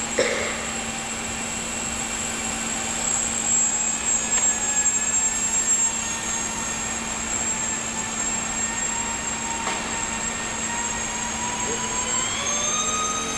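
Electric motor and propeller of an F3P indoor aerobatic model plane whining, the pitch shifting with throttle through the manoeuvres and climbing near the end.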